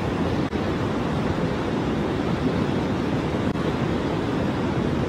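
Steady rushing of a swollen, muddy river in full flood.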